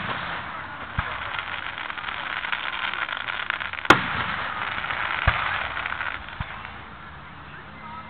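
Aerial fireworks shells: one sharp, loud bang about four seconds in, with fainter low thumps around it, over a steady background hiss.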